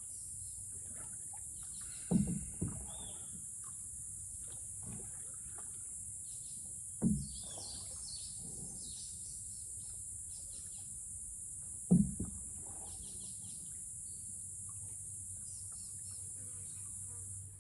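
Rainforest ambience heard from a canoe: a steady high-pitched insect drone, scattered bird calls, and dull knocks of the paddle against the canoe three times about five seconds apart, the first one doubled.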